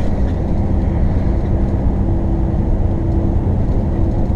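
A moving RV's engine and tyre noise: a steady, loud low rumble with a faint engine hum.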